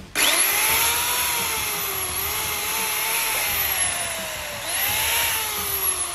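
Bosch GDC 140 marble cutter's electric motor and blade running free with no load, switched on with a rising whine that then sinks slowly in pitch. About four and a half seconds in it revs up again, and it sinks once more near the end.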